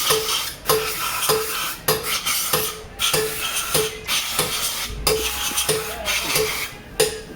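Repeated hand strokes of a metal tool against metal, about one and a half a second and slightly uneven, each starting with a sharp clink and trailing off in a short scrape.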